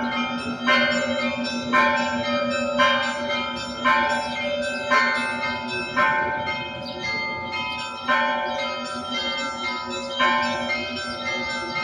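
Russian Orthodox church bells rung by their clappers: a loud strike about once a second over a cluster of smaller bells, the tones ringing on and overlapping between strikes.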